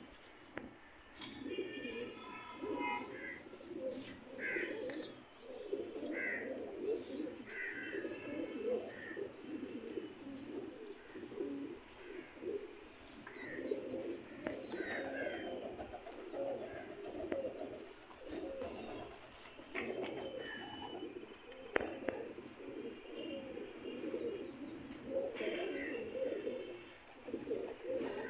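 A flock of domestic fancy pigeons cooing, several birds overlapping in a continuous pulsing murmur. Brief higher chirps come in now and then over the cooing.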